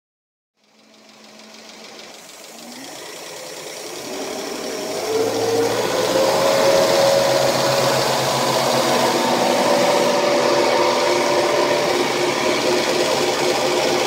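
Jasper replacement marine engine running at a steady idle in the boat's engine bay. The sound swells over the first few seconds, rises slightly in pitch about five seconds in, then holds steady.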